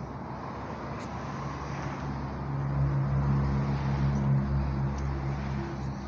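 A motor vehicle's engine going by, a steady low hum that swells about halfway in and fades near the end, over the hiss of traffic.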